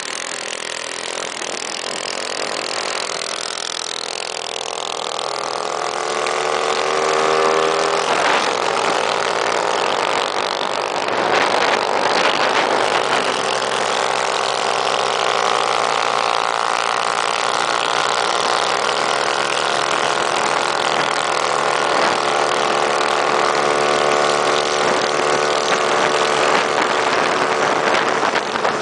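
Small minibike engine accelerating, its pitch rising over the first several seconds, then running steadily at high revs.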